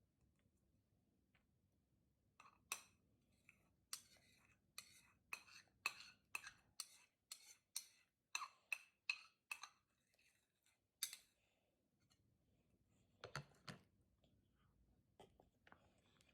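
Spoon scraping and tapping against a bowl: a run of sharp clinks about two a second, then a couple more near the end, as the last of the food is scraped up.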